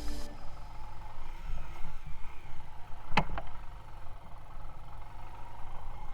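Uneven low rumble of a motorcycle ride on a rough track, with a sharp knock about three seconds in.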